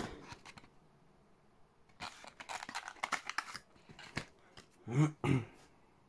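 Cardboard box and paper instruction leaflet being handled: a quick run of rustles, scrapes and small clicks from about two to four seconds in, followed by a brief murmur of a voice about five seconds in.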